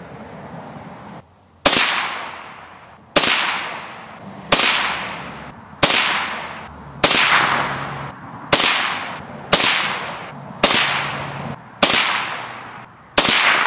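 Ten shots from a Ruger 10/22 semi-automatic .22 LR rifle firing Winchester Hyper Velocity 40-grain rounds, one every second or so. Each is a sharp crack trailing off in a long echo.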